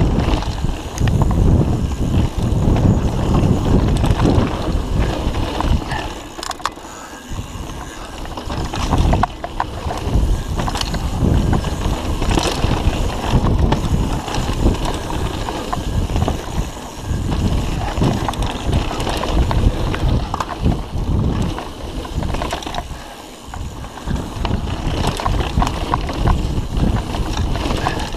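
Mountain bike riding fast down dirt and stony singletrack: tyres rolling and crunching over dirt and loose stones, and the bike rattling and clattering over bumps, with wind buffeting the microphone. It eases off briefly twice, about a quarter of the way in and again near the end.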